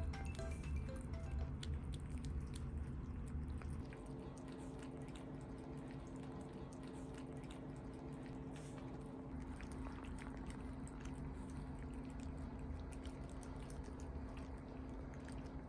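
Cats licking and lapping Churu purée treat from small bowls: a steady run of many small, wet tongue clicks and smacks.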